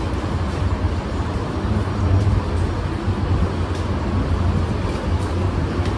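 A steady low rumble under a constant hiss of background noise, with no clear single event.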